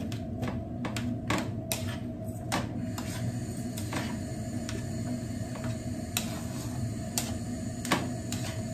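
Plastic spatula scraping and knocking against a nonstick frying pan as fried rice is stirred and turned, irregular clicks and taps over a steady low hum.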